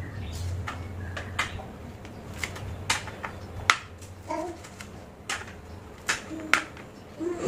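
A kitchen knife chopping chilies on a plastic cutting board: irregular sharp taps of the blade hitting the board, about one or two a second.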